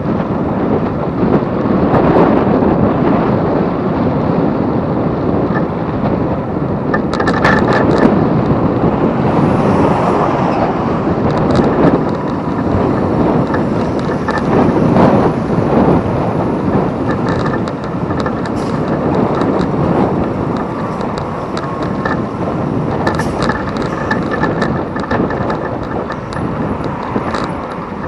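Wind rushing and buffeting over the microphone of a bicycle-mounted camera while riding, with scattered short clicks and rattles from the bike.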